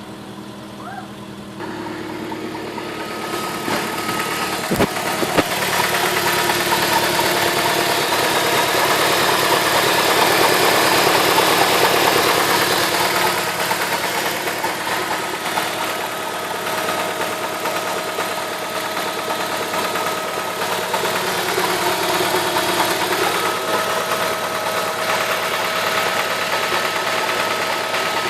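BMW E46 318 engine running steadily at idle with a knocking noise, the sound the owner presents as engine knocking. It grows louder after the first couple of seconds, with a single sharp click about five seconds in.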